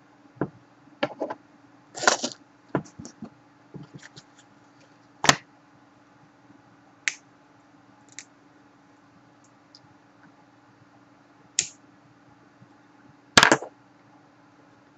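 Irregular sharp clicks and taps of a computer mouse and desk, some in quick clusters, the loudest near the end, over a steady low hum.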